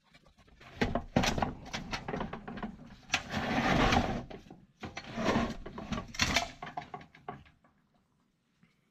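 Handling noise from a differential carrier with an E-locker being turned over in a galvanised metal bucket: irregular knocks, scrapes and rustling, loudest about three to four seconds in, dying away near the end.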